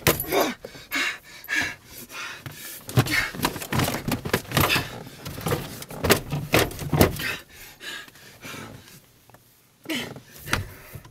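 Irregular knocks, thumps and rustling, coming thick and fast, then thinning out about eight seconds in.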